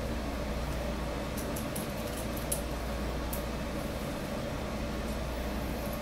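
Steady low room hum, with a few faint light clicks between about one and a half and three and a half seconds in, as a metal RF calibration standard is handled on the end of the test cable.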